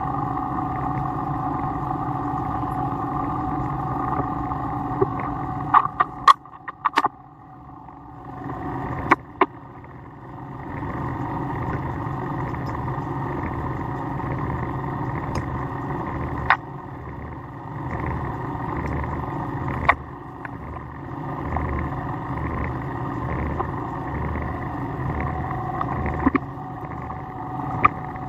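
Milling machine running with a steady hum and whine as a carbide end mill cuts AR400 steel. The machine sound drops away about six seconds in, with a few sharp clicks and knocks, and comes back in at about ten seconds.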